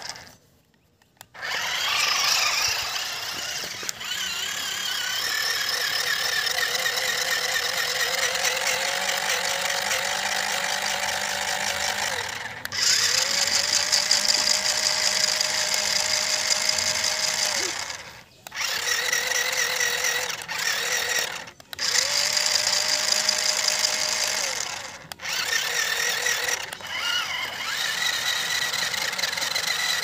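Small electric drive motors of a stunt RC car whining at speed as its wheels spin in dirt and against rocks. The whine cuts out and starts again several times as the throttle is released and reapplied.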